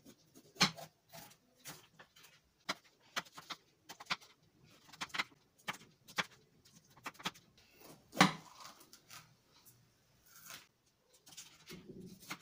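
Kitchen knife slicing bell peppers on a wooden cutting board: irregular knocks of the blade on the wood, with a louder strike about half a second in and another about eight seconds in.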